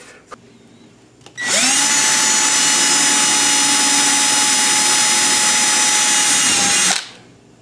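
Cordless drill spins up with a short rising whine, runs steadily for about five seconds drilling a mounting hole through a house numeral into the wooden box front, then stops.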